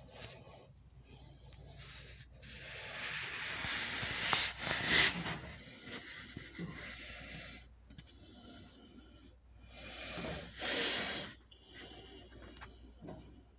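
Rubbing and scraping noise in uneven stretches, loudest a few seconds in and again near the end, with one sharp knock about five seconds in: a phone being handled and moved about.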